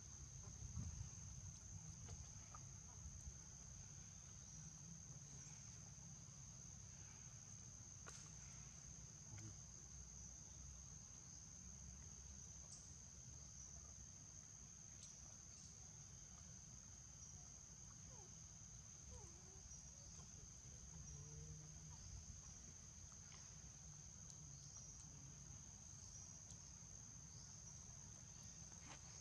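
Faint, steady high-pitched insect drone, one unbroken tone, over a low rumble, with a few faint ticks here and there.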